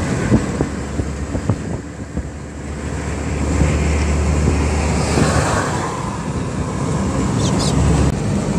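Steady low rumble of a car travelling at motorway speed, tyre and engine noise with wind rushing past, swelling briefly about five seconds in.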